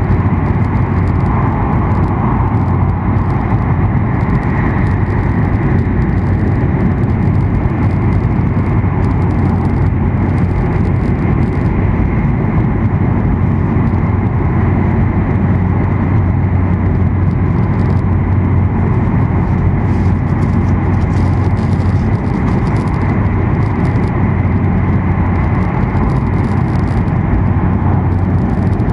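Steady interior noise of an E7 series Shinkansen travelling at speed, heard inside the passenger cabin: a constant low rumble with a rushing hiss over it.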